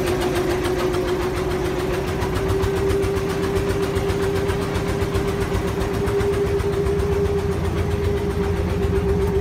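Small boat's engine running steadily at a constant speed, driving the wooden boat across the lake, heard from on board.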